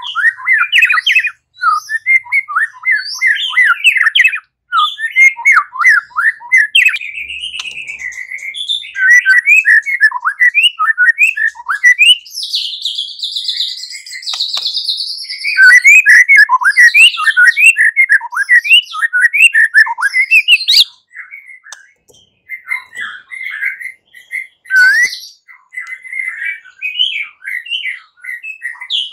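White-rumped shama (murai batu) singing its fighting song: a fast, unbroken stream of varied whistles, trills and chips. Partway through comes a harsh, buzzy chattering stretch of about four seconds. The song turns sparser and quieter in the last third.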